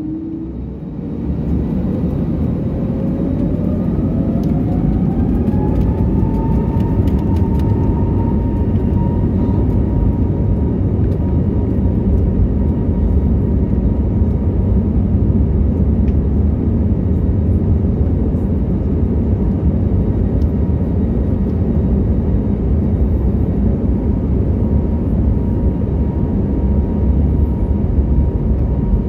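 Airbus A321neo's Pratt & Whitney PW1100G geared turbofan engines spooling up to take-off thrust, heard from inside the cabin. A whine rises over the first several seconds and then holds steady over a heavy, growing rumble as the aircraft accelerates down the runway.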